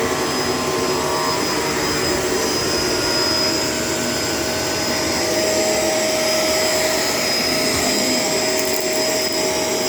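Shark LA702 Lift-Away upright vacuum cleaner running steadily, a constant whine over the rush of air.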